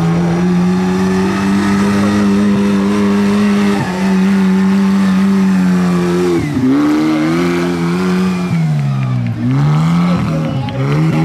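Tractor engine running hard at high revs in a sprint race, with a steady, strong engine note; in the second half its pitch drops and climbs back three times.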